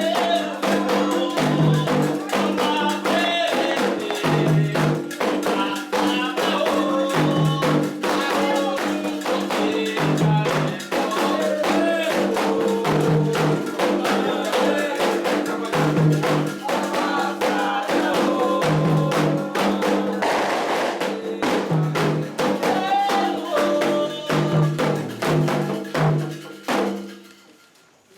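Candomblé ritual music: atabaque hand drums and percussion playing a steady beat under sung chants. It stops suddenly near the end.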